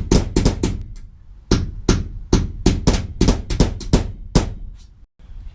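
Hammer striking a steel punch to drive out school-bus floor rivets: a quick run of sharp metallic blows, a pause of about a second, then a longer run of a dozen or so blows at roughly three to four a second.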